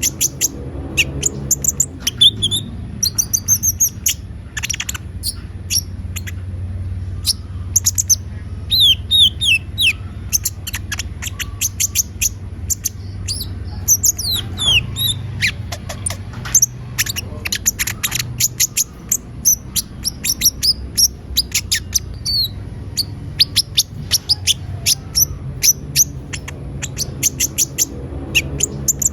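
Olive-backed sunbird (konin) singing energetically: rapid, high-pitched chirps and short trills in quick bursts, over a steady low hum.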